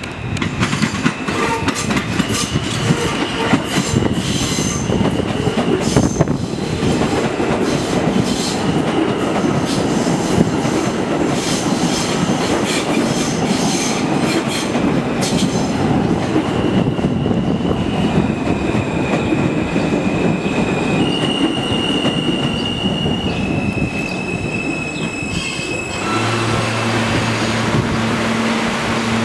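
New York City subway train pulling into a station: a loud rumble of wheels with sharp clicks over the rail joints and squealing on the curve, then a high whine that changes pitch in steps as it slows. About 26 seconds in it comes to a stop and settles into a steady low hum.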